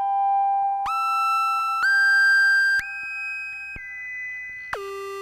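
Cre8Audio East Beast analog synthesizer playing a sequence of held, whistle-like notes about one a second. Each note starts with a click and a short glide in pitch. The notes step upward, then drop to a low note near the end, and fainter echoes of earlier notes ring on from a delay pedal. A short burst of hiss sits over the low note.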